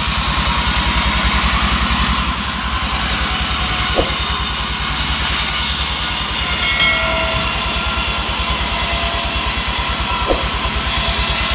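Sawmill machinery cutting pine: an engine runs steadily at an even rapid beat, under the constant hiss of the saw going through the wood.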